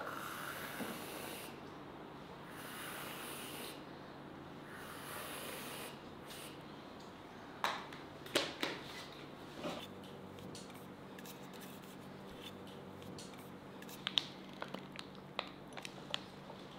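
Aerosol can of whipped cream spraying in three short hissing bursts, followed by a few scattered clicks and knocks.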